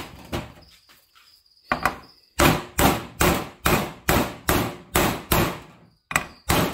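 A hammer striking a socket to drive the crank bearing out of a heated Husqvarna 266XP chainsaw crankcase half, the case having been heated so it expands and lets go of the bearing. The blows are sharp and metallic: a few single strikes, then a steady run of about three a second, then two more near the end, with the sheet-metal tabletop ringing under them. Crickets chirp faintly.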